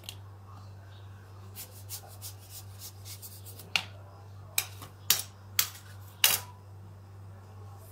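Kitchen knife cutting through a watermelon's firm rind: a run of light clicks, then several loud, crisp cracks from about halfway through as the blade breaks through the rind.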